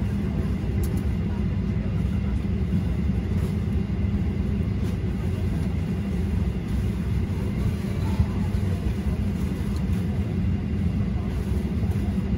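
Steady low rumble inside the cabin of a Boeing 737-800 standing at the gate, even and unchanging throughout.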